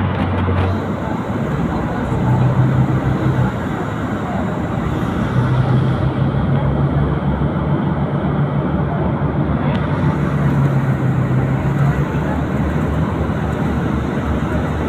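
Airport apron shuttle bus driving, its engine hum and road noise heard from inside the passenger cabin; the engine note steps up slightly about two seconds in and then holds steady.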